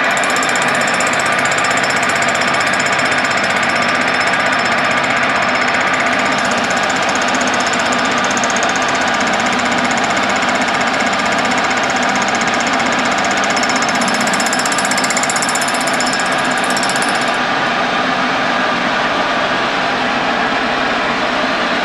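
Milling machine spinning a 25 cm flycutter with a single ceramic insert at about 1040 rpm, taking a shallow face cut across mild steel: a loud, steady, rattling cutting noise over the spindle and gear drive. A high whine in the mix cuts off about three-quarters of the way through.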